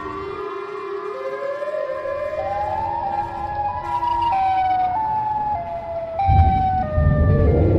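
Siren Head's siren call sound effect: a slow rising wail of several tones together that then steps back and forth between higher and lower pitches. A deep rumble comes in about six seconds in.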